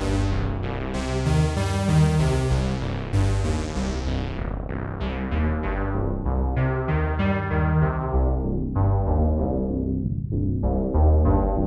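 Sequential Prophet-6 analog polysynth playing a dark patch: chords and notes over a held low bass. Each note starts bright and quickly dulls, with a brief lull near the end.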